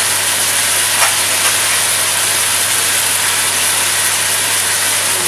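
Steady hiss over a low hum from cooking on the hob, with a couple of light clicks about a second in.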